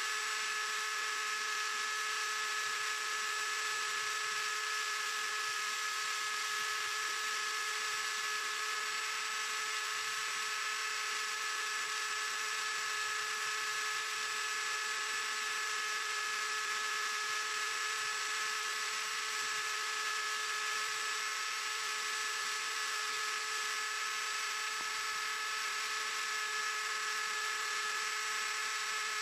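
Small CNC machine running steadily: an even hiss with a few constant whining tones that do not change.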